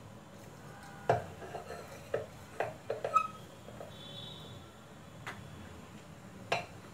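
A stainless-steel mixer-grinder jar handled and set on the counter: a series of light knocks and metal clinks, the sharpest about a second in, one with a brief ring about three seconds in.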